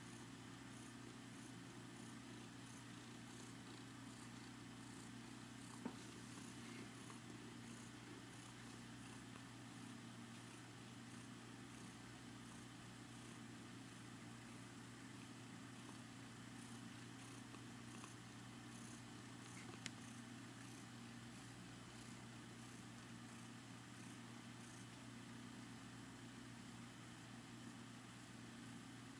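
Domestic cat purring continuously, a faint, steady low purr. Two brief clicks break in along the way.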